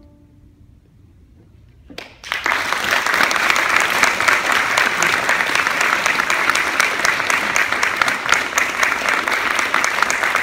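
After about two seconds of quiet, an audience breaks into applause that goes on steadily.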